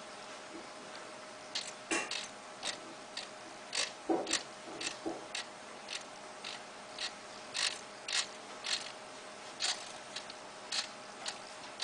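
Small servo motors turning a camera, whirring in short, irregular bursts of gear noise as they make quick corrections, over a faint steady hum.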